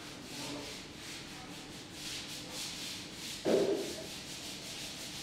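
Repeated scraping or rubbing strokes, with a short dull bump about three and a half seconds in that is the loudest sound.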